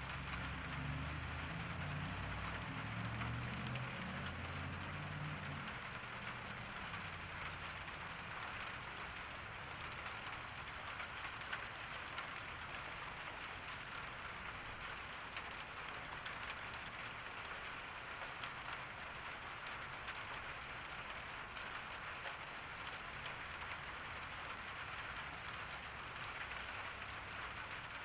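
Steady summer rain falling on a garden: a dense, even patter of drops. A low rumble sits under it for the first five seconds or so, then fades.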